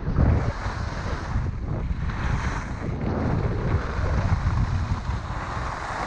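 Wind rumbling on the microphone of a camera worn by a skier running fast downhill, with the hiss and scrape of skis on hard-packed snow.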